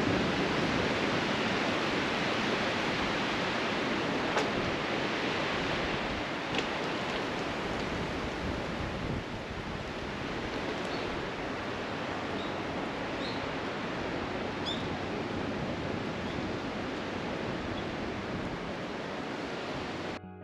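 A steady rushing noise, slightly easing about halfway through, with a few faint short high chirps near the middle.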